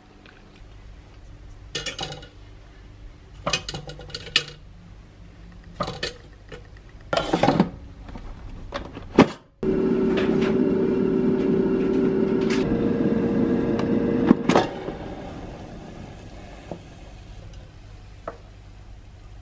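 Light clicks and handling noises, then an air fryer starts suddenly, its fan running with a steady hum that steps up in pitch partway through. After about five seconds it stops, leaving quieter clatter.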